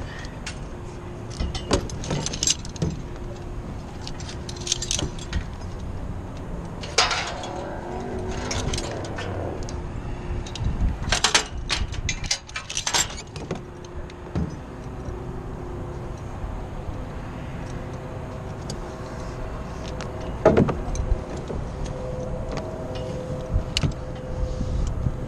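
Metal clinks and knocks of climbing and rigging hardware being handled against the tower's steel mounting pipes, scattered irregularly, over a steady background rumble.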